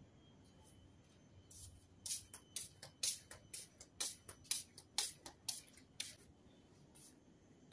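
Slide slippers slapping on a tiled floor with each step, a quick, even run of sharp slaps, about four a second, that starts about a second and a half in and stops about six seconds in.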